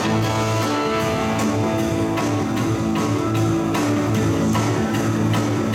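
Live rock band playing a blues-rock song on electric guitars, bass and drum kit, the band coming in right at the beginning with a steady beat.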